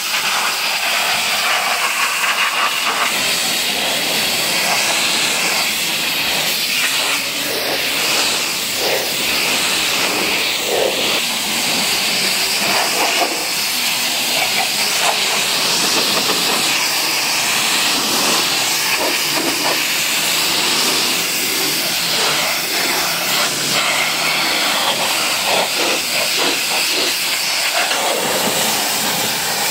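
Pressure washer lance spraying a high-pressure water jet over a car's wheel, windows and door panels: a loud, steady hiss of water striking the bodywork and glass.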